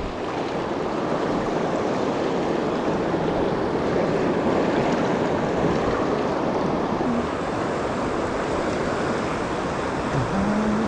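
River water rushing steadily through a shallow riffle, an even broad rush without breaks.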